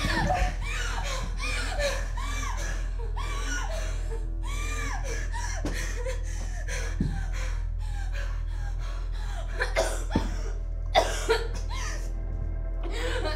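Tense background score with a steady low drone, and over it a woman's breathless gasping and whimpering, in short bursts about twice a second, mostly in the first half. A few sharp clicks near the end.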